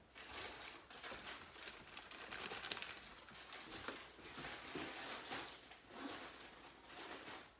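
Faint, scattered rustling and light clicks of handling off to the side, with no steady sound.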